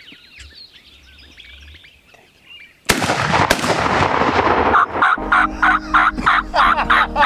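Faint songbird chirping, then about three seconds in two shotgun blasts about half a second apart: a double on wild turkey gobblers. From about five seconds in, background music with a steady beat takes over.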